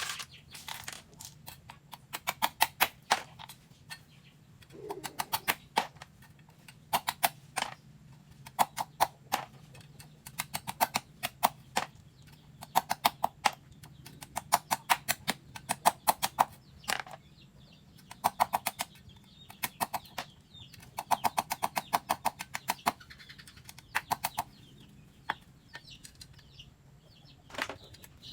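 Runs of rapid sharp knocks, about ten a second in bursts of one to two seconds, repeated throughout over a faint steady hum.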